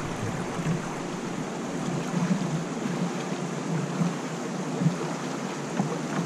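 Shallow stream water rushing steadily over a cobble riffle around a canoe, with a few soft low thumps.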